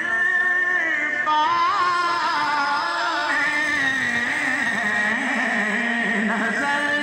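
Man singing into a microphone over a sound system, drawing out long, wavering held notes, with musical accompaniment.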